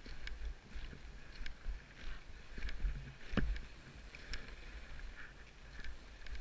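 Skis sliding and turning over snow in a steady swishing hiss, with a low rumble underneath and scattered sharp clicks, the loudest about three and a half seconds in.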